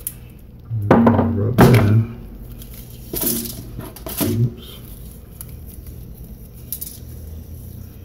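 Thumps and knocks from handling a seasoned potato and its plastic tray, loudest in two bursts about a second in, with smaller knocks around three and four seconds.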